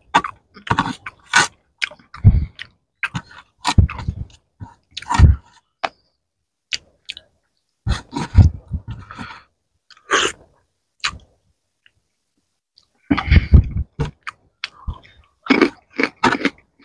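Close-miked chewing and mouth smacking from a person eating rice and puti fish in gravy by hand, with the wet squish of fingers scooping rice through the gravy. It comes in irregular bursts, with a quiet gap of about two seconds past the middle.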